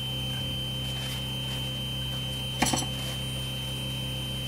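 Proxxon DB 250 mini lathe running steadily, an even motor hum with a thin high whine over it. One short knock comes about two and a half seconds in.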